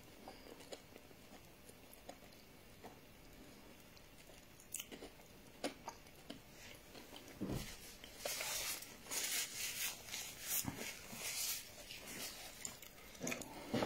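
Chewing and crunching of crisp fried akara (bean fritters), with scattered small crunches and a denser run of crunchy bites from about eight to twelve seconds in.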